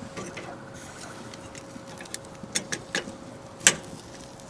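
Metal tongs clicking against the steel cooking grate of a Weber kettle grill as chicken pieces are turned: a few sharp clicks past the halfway point, the loudest a little before the end, over a faint steady hum.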